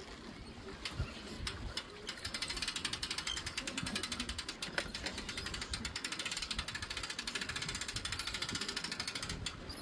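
Hand-cranked boat trailer winch being wound in, its ratchet pawl clicking fast and evenly as the strap pulls the boat up onto the trailer; the clicking gets louder and steadier about two seconds in.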